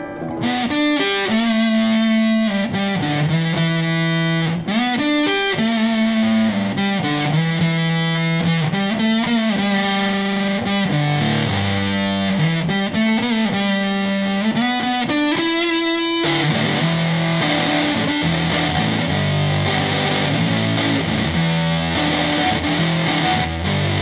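Electric guitar, a Telecaster built from parts, played on its neck pickup through a Yamaha THR5 practice amp with a fuzz tone and a little reverb, picked up by a phone from the amp. It plays single-note riffs, then denser chord playing from about two-thirds of the way in.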